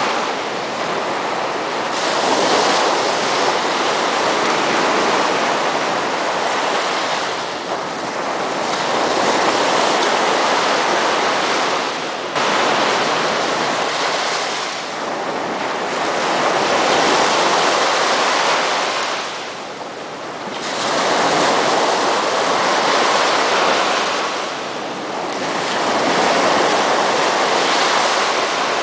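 Small sea waves breaking and washing up a sandy beach, a steady surf hiss that swells and eases every few seconds.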